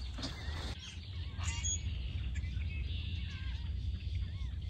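Small birds chirping, short arched calls repeated several times, over a low steady rumble.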